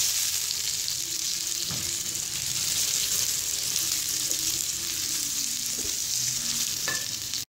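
Sliced onions sizzling as they fry in hot oil in an aluminium kadai, a steady hiss, with a spatula stirring and scraping the pan now and then. The sound cuts off suddenly near the end.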